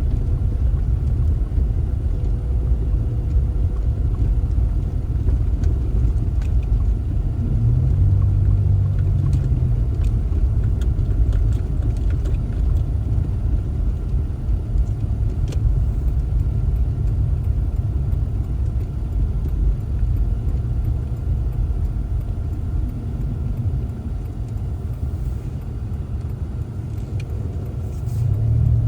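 A car driving, its engine and road noise a steady low rumble, a little quieter for a few seconds near the end.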